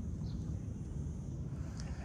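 Wind buffeting the microphone as an uneven low rumble, with a few short, high bird chirps.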